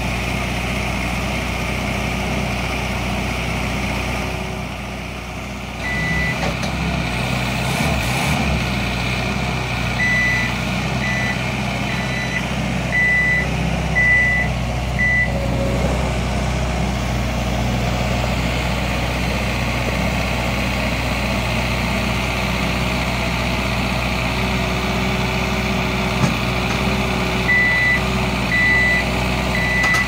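Bawoo BSL350EX skid steer loader's diesel engine running steadily while the machine works, with its reversing alarm beeping at about one beep a second in three spells: briefly around six seconds in, from about ten to fifteen seconds, and again near the end.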